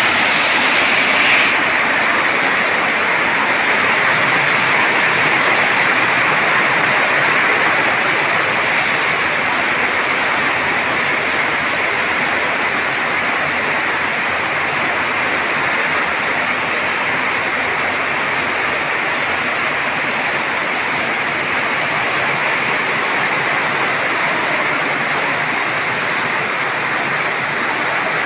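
Steady heavy rain, a constant even hiss with no rhythm or pitch.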